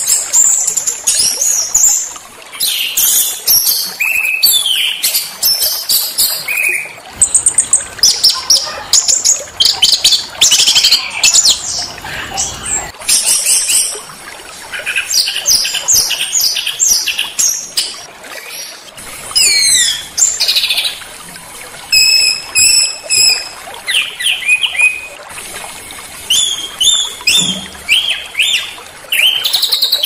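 A small songbird singing loudly in quick phrases of sharp, high-pitched chirps, trills and whistles, with short pauses between phrases. It is a tutor ('masteran') song recording of the kind played to train white-rumped shamas.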